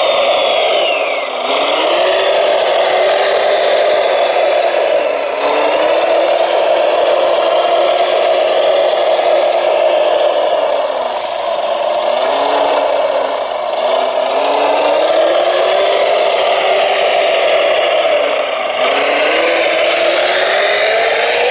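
Radio-controlled model construction machines running: motor whine repeatedly rising and falling in pitch as the motors speed up and slow down, over a steady drone.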